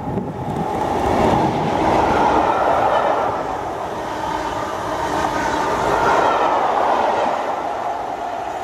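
A Class 37 diesel locomotive passes at speed, towing a rake of unpowered Class 323 electric multiple units. The rumble of the train peaks as the locomotive and the first carriages pass, and the clickety-clack of the wheels runs on as the rake goes by, easing off a little near the end.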